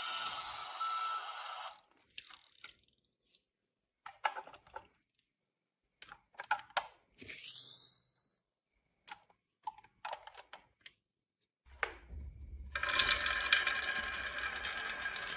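Marbles rolling and clicking down a wooden marble run. A busy clatter stops within the first two seconds, then single clicks and knocks follow for about ten seconds, with one short rolling rush in the middle. Near the end a dense, continuous rattle with ringing tones starts up as many marbles run together.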